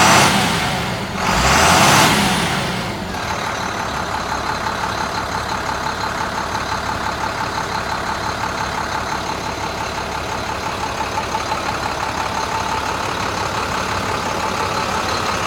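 Diesel engine of a 2005 International 4300 bucket truck revved twice in the first three seconds, then settling back to a steady idle with no odd noises.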